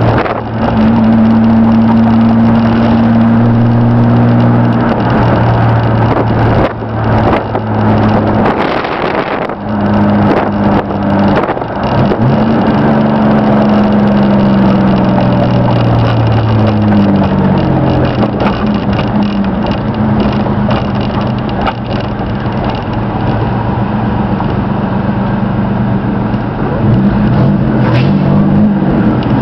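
A 1992 Chevrolet S-10 pickup's 2.8-litre V6 running under way, heard from inside the cab, with road noise. The engine note holds steady, drops away for a few seconds with a few knocks, climbs again, falls slowly as the truck slows, and rises once more near the end.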